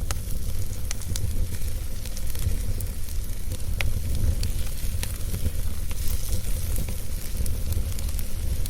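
Wood fire burning in a fireplace: a steady low rumble of flames with a light hiss, broken by sharp crackles and pops from the burning logs.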